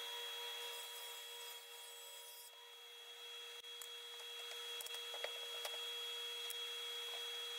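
Wooden boards and a toggle-clamp jig being handled and slid across a table saw top: scraping with a few light knocks in the second half, over a steady machine hum.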